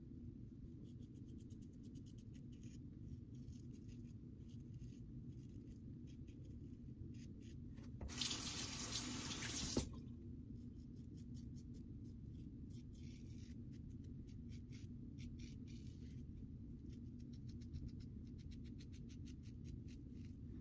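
Safety razor with a Polsilver blade scraping through lathered stubble in runs of short, quick strokes. About eight seconds in, a tap runs for just under two seconds, as for rinsing the razor, and ends with a sharp knock. A steady low hum lies under it all.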